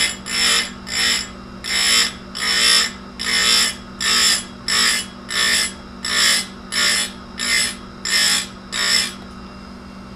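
Tecomec Jolly Evo chain grinder's wheel grinding chainsaw chain cutters in about fourteen short, quick, evenly spaced strokes, high-pitched and gritty, over the steady hum of the grinder motor. The strokes stop about nine seconds in while the motor keeps running.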